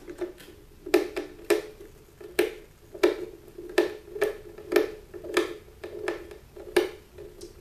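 Screwdriver turning out small screws, giving a sharp click about every two-thirds of a second as it is turned.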